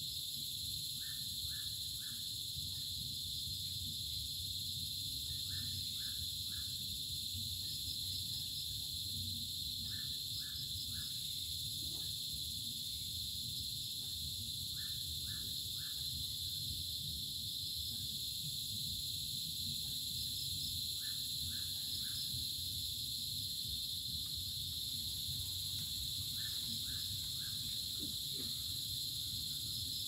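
Steady, high-pitched chorus of crickets and cicadas. A call of three or four quick notes repeats about every four to six seconds, over a low rumble.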